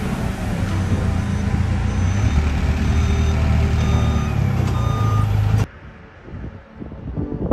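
Clark forklift engine running close by, with a reversing alarm giving short, evenly spaced beeps. The sound cuts off suddenly after about five and a half seconds, leaving it much quieter.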